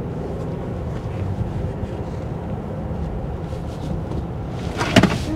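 A car being driven, heard from inside the cabin: a steady low rumble of engine and road noise, with a short sharp knock near the end.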